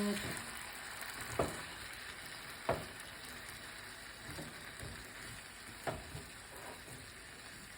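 Chicken wing curry sizzling in a pan with a steady hiss that fades slightly, and three light clicks of a utensil against the pan.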